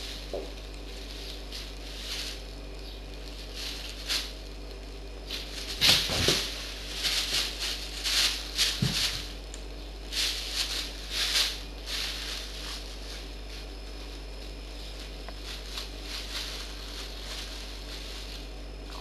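Thin plastic bag rustling and crinkling in irregular bursts as a kitten bites, paws and clambers over it, busiest in the middle and sparser near the end, with one louder rustle about six seconds in.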